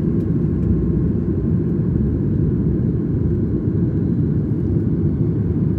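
Steady low cabin rumble inside a Boeing 737 MAX, its CFM LEAP-1B engines and the aircraft's running noise heard through the fuselage.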